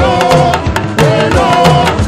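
Loud live praise music: busy hand-drum and drum-kit percussion under sustained melodic lines from instruments or voices.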